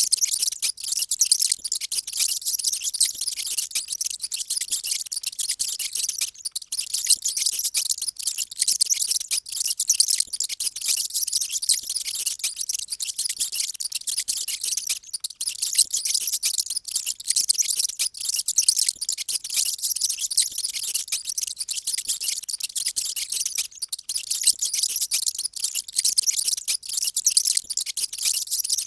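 Many mice squeaking at once: a dense, unbroken chatter of short, high-pitched squeaks overlapping one another.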